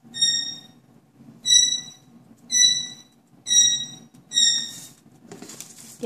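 White-bellied caique giving five short, high squeaks of steady pitch, about one a second. A short scratchy noise follows near the end.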